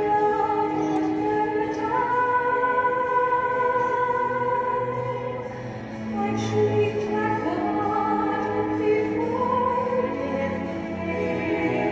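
Music with a singing voice holding long notes, operatic in style, that step and glide between pitches over a fuller backing.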